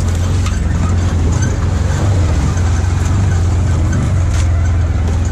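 Side-by-side UTV engine running steadily as the machine drives along a rough, muddy trail. The engine's low drone is heard from inside the cab, with a few scattered knocks and rattles.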